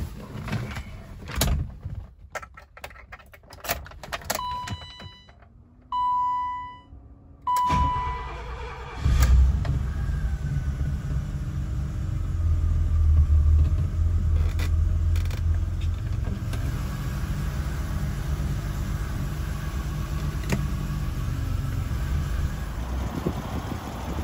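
Keys jangling and clicking at the ignition, then three short electronic warning chimes. About nine seconds in, the 1986 BMW 325e's 2.7-litre straight-six starts and settles into a steady idle, heard from inside the cabin.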